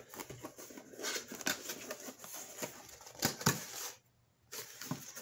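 Small cardboard box being opened and handled by hand: a run of short clicks, taps and scrapes from the cardboard and the packaging inside, with a brief pause about four seconds in.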